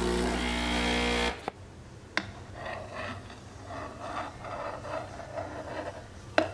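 Espresso machine running with a loud, steady motor hum that cuts off suddenly about a second in. Quieter uneven sounds follow, with a sharp click near the end.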